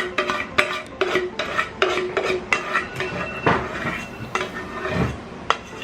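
Spoon and small puto molds clinking and clattering over and over, many of the knocks leaving a short ringing tone, as batter is spooned into the molds.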